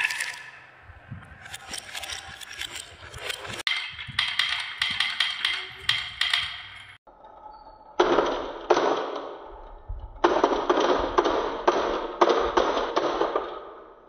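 Marbles rolling down a wooden marble run, a rapid clatter of clicks and knocks as they hit the wooden track walls and each other. It breaks off briefly midway, then starts again with a duller rattle.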